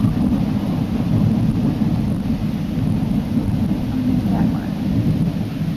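Thunder rumbling after a lightning flash, a low continuous rumble that holds steady.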